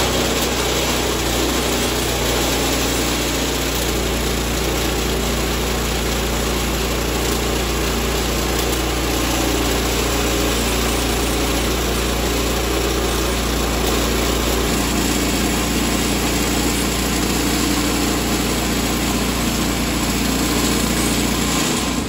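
Woodland Mills HM126 portable band sawmill running steadily, its gas engine driving the band blade through a shallow skim cut along the top of a 6x6 timber. The sound changes slightly about fifteen seconds in.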